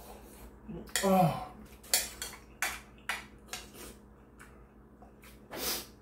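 Metal spoon clinking and scraping against a ceramic bowl in a run of sharp clicks as rice and stew are scooped up and eaten. A short falling vocal sound comes about a second in.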